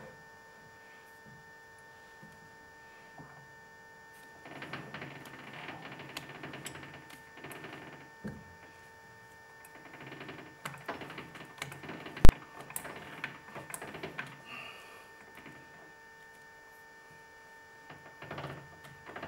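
Clicks and scrapes of hands working at a stopped lathe's three-jaw chuck and the acrylic workpiece held in it, in irregular spells, with one sharp click about twelve seconds in. A steady electrical hum runs underneath.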